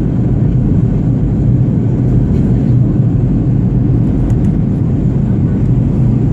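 Airplane in flight: a steady low roar of engine and airflow noise that does not change.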